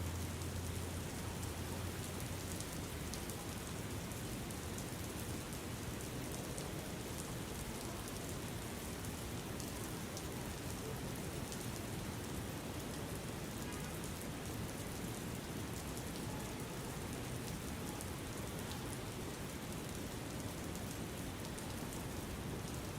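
Steady rain falling, an even hiss with scattered tiny drop ticks, unchanging throughout.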